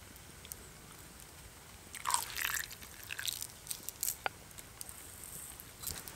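Short, crackly rustling bursts and light clicks while dry seasoning is added to raw chicken drumsticks in an enamel bowl, starting about two seconds in and coming on and off through the middle.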